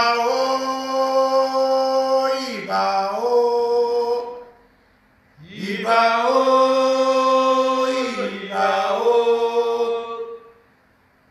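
A man chanting in two long held phrases of about four to five seconds each, separated by a short pause; each phrase sustains one note, then dips lower and comes back up before trailing off.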